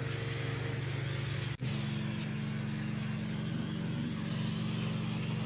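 A motor running steadily with a strong hiss over its low drone. It cuts out for an instant about a second and a half in, then carries on.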